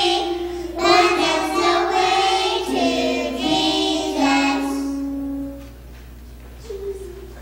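A group of children singing a verse of a song in held notes, ending about two seconds before the close, with one faint short sung note after.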